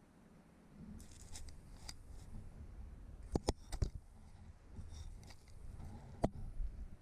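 Chimney inspection camera scraping and knocking against the brick walls of the flue as it is moved through it. A rustling scrape starts about a second in, with a few sharp knocks about halfway through and another near the end.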